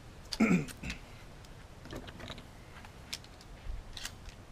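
A brief voice, then a few faint, scattered clicks of something small being handled.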